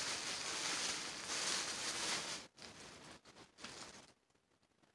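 Plastic shopping bags rustling and crinkling as items are pulled out of them, for about two and a half seconds, followed by a few fainter rustles.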